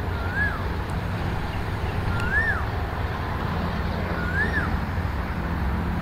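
Steady low rumble of a sport motorcycle running at low speed, with a bird calling three times, each call a short whistle that rises and then falls, about two seconds apart.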